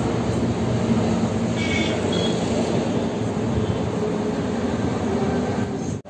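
Steady low rumble of heavy vehicle engines and road traffic, with a faint steady engine hum running through it.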